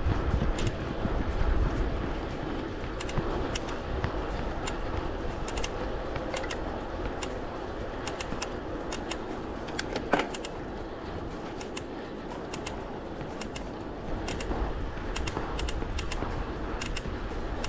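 Riding noise from a road bike picked up by a handlebar camera: a steady rumble of wind and tyres on asphalt, with light irregular clicks and rattles throughout and one sharper knock about ten seconds in.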